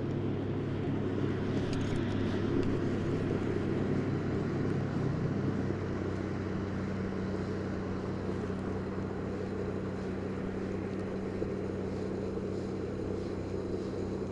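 Distant motor engine running steadily, a low, even hum.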